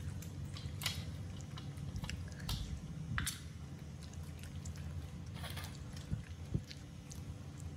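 Baby monkeys eating pieces of cooked meat: scattered small wet clicks and smacks of chewing and handling the food, over a low steady hum.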